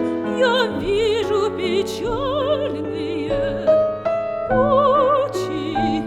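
A classical female voice singing with wide vibrato over piano accompaniment.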